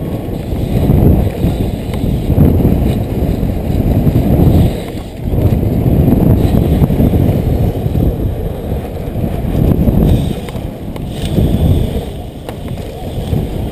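Wind rushing over a helmet-mounted GoPro on a BMX bike at racing speed, mixed with its tyres rolling over packed dirt. The loud rushing rises and falls with the ride, dipping briefly about five seconds in.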